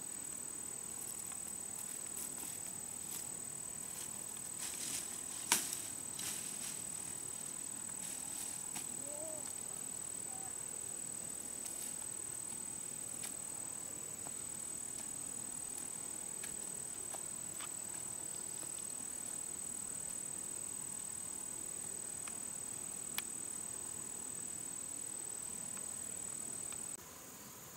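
Insects droning in the forest: one steady, high-pitched tone that runs unbroken and cuts off a second before the end. A few sharp snaps come about five to six seconds in, the loudest of them about five and a half seconds in, and a single snap follows near the end.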